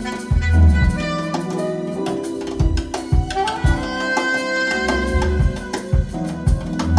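Live jazz recording with the drums to the fore, played back through a high-end hi-fi system: kick-drum thumps and cymbal hits over held keyboard and bass notes, the heaviest kicks about a second in, around five seconds and at the end.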